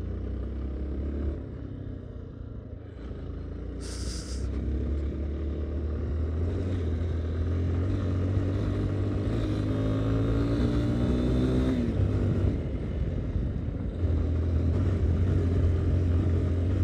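Yamaha Ténéré 250's single-cylinder engine running as the motorcycle rides along a dirt road. Its note climbs steadily in the middle and then drops suddenly, and there is a brief hiss about four seconds in.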